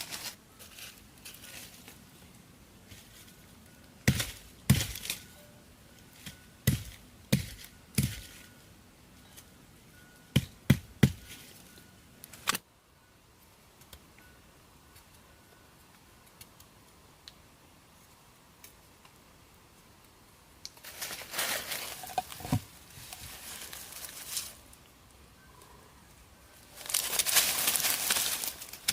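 A series of about ten sharp knocks spread over some eight seconds, like hand-tool strikes on wood. After a quiet stretch come two spells of rustling near the end.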